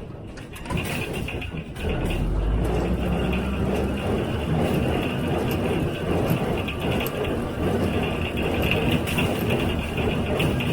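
John Deere 348 square baler with a #42 pan kicker ejector running behind a tractor: steady machinery noise with light clatter, growing louder over the first two seconds.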